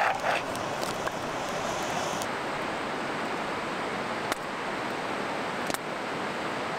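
Steady rushing of a flowing river, with a few light clicks about four and six seconds in.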